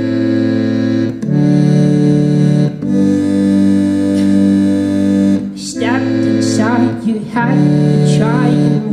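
Live band playing an instrumental intro: sustained chords that change every second or two, with wavering, gliding notes laid over them from about two thirds of the way in.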